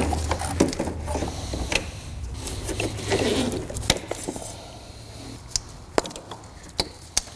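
Plastic wiring-harness connectors clicking and the wire loom rustling as gloved hands unplug the harness and pull it free of the engine, with several sharp clicks spread through. A low hum runs underneath and stops about halfway.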